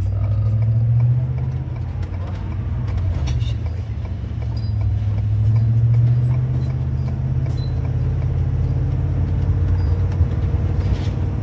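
A motorhome driving at road speed: a steady low engine drone with road and tyre noise, swelling a little about a second in and again midway.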